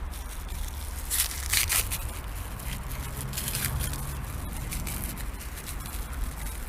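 Bench-rest parts and their packaging being handled on a table: irregular rustling and rubbing, loudest about a second in, over a steady low hum.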